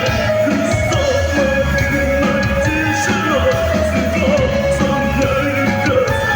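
Rock band playing live, with a singer over the band's steady, loud accompaniment.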